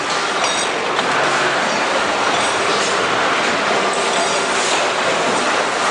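Steady din of metalworking machines running in a plier factory's machine shop, with metallic squeals and clatter over a continuous noise.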